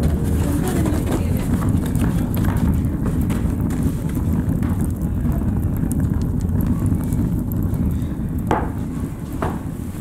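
Wood fire crackling in a wood-burning stove: a steady low rumble of flames with frequent sharp pops and snaps.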